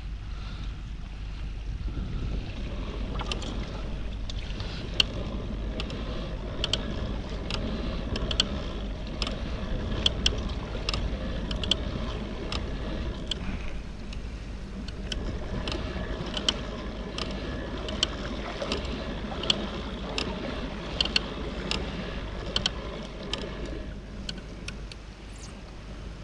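Kayak moving on open sea: steady water wash and wind rumble on the microphone, with a regular series of short, light clicks from about three seconds in until near the end.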